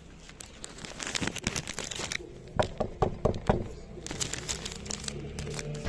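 Crinkling, rustling handling noise, then four quick knocks on a front door.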